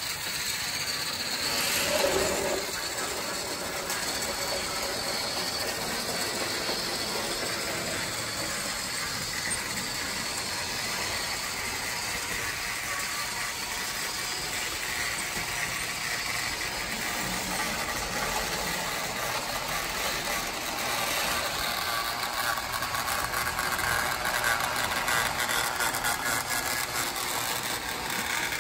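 Battery-powered TrackMaster toy engine's small electric motor and gears running steadily as it pulls its coaches along plastic track, with a fine clicking rattle throughout.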